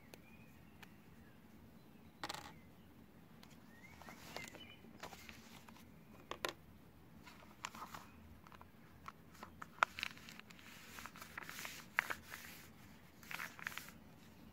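Newspaper rustling and crinkling as it is handled, folded and smoothed flat by hand, in short irregular bursts with a few sharper crackles, busier in the second half.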